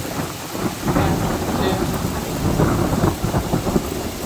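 Thunder rolling across the sky in a long, irregular rumble, over the steady patter of falling hail.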